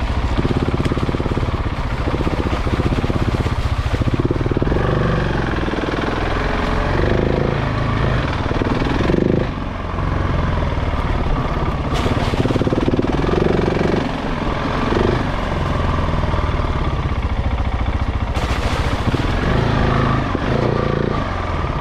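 KTM 690 Enduro's single-cylinder engine running while the bike is ridden, its revs rising and falling every second or two, with a brief dip in level about halfway through.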